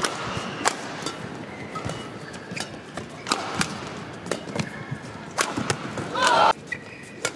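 Badminton rally: sharp racket strikes on the shuttlecock traded back and forth, with shoes squeaking on the court mat. About six seconds in, a louder pitched squeal lasts half a second and cuts off suddenly.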